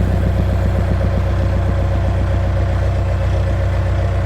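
Skid steer loader's diesel engine running steadily, heard from inside the cab, while the hydraulic lift arm is being raised.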